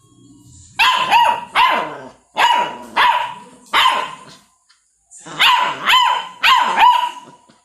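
Beagle barking, about eleven loud barks that each drop in pitch, in two runs with a pause of about a second between them.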